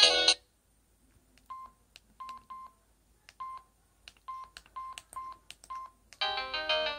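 A Samsung X427 mobile phone giving about eight short, single-pitch keypad beeps with faint key clicks as its buttons are pressed. A polyphonic ringtone cuts off just at the start, and another polyphonic ringtone melody begins about six seconds in.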